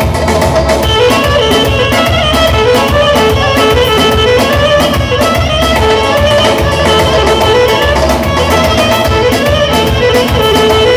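Band music: a wavering lead melody over a steady bass and drum beat.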